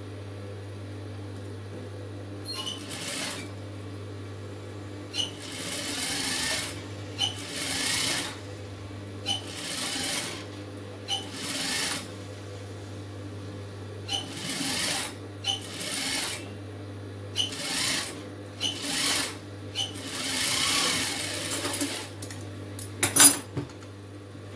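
Industrial sewing machine stitching fabric in short runs, about ten bursts of a second or two each. Its motor hums steadily between runs. A sharp click comes near the end.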